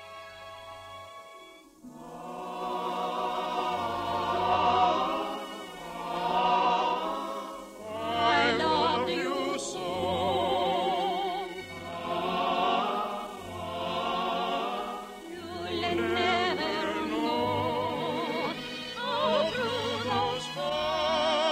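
A held orchestral chord fades about two seconds in. Then operatic-style singing with heavy vibrato comes in over the orchestra, in slow phrases that swell and fall about every two seconds.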